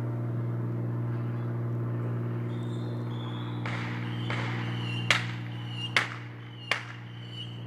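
A handful of sharp pops of small firecrackers, spaced under a second apart, starting about halfway through, over a steady low hum.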